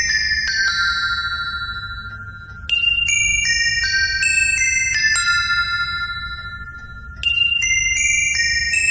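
Small bright bells playing a quick falling run of notes that ring on and fade, the same run starting again about three seconds in and once more some four and a half seconds later.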